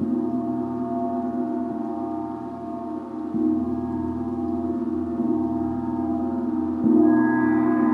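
Gong ringing with a long, layered hum of many sustained tones, struck softly again about three seconds in and more strongly near the end.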